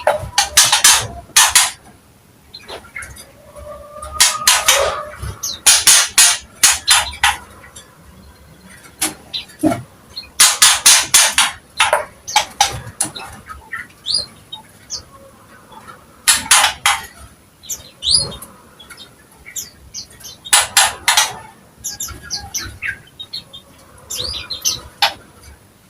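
A cucak ijo (green leafbird) singing vigorously. Loud clusters of rapid, harsh notes come every few seconds, with thin whistled slurs between them.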